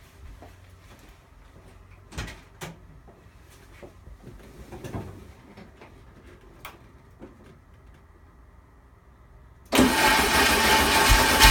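A few light clicks and knocks, then near the end the starter suddenly cranks the 1973 VW Super Beetle's air-cooled flat-four engine, loud and with a rapid low pulsing, on a little gas sprayed into the carburetor; the owner later judges the battery to be running low.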